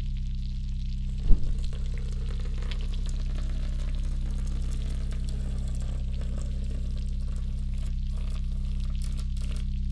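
Electroacoustic film score: a steady low drone of several held tones under a fine crackling fizz of many tiny clicks. A single thump lands about a second in.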